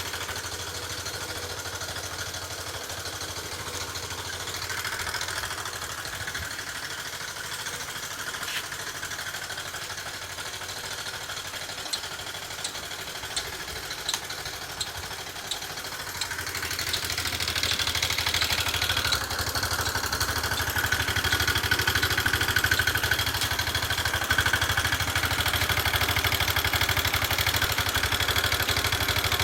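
Yamaha Cygnus X scooter's single-cylinder engine running with an abnormal noise, with some light ticking midway. The engine gets louder about halfway through and stays up. The owner attributes the noise to a camshaft worn down by oil starvation, after water-contaminated, sludged oil clogged the oil passages; the engine failed two days later.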